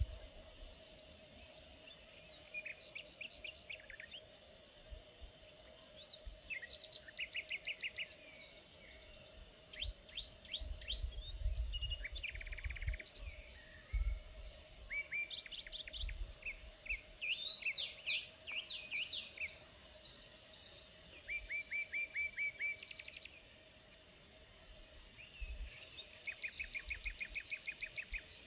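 Several songbirds singing and calling over one another, in fast trills of repeated chirps and short whistled notes. A steady faint hum runs underneath, and low rumbles of wind come about a third of the way in.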